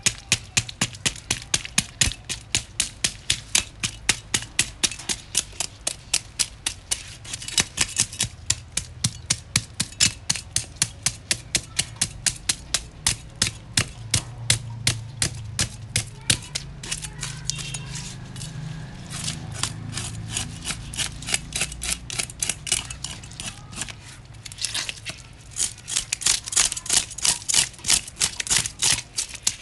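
A knife working a large snapper as it is cleaned for sashimi: quick, even, rhythmic strokes, about three a second, that thin out briefly a couple of times.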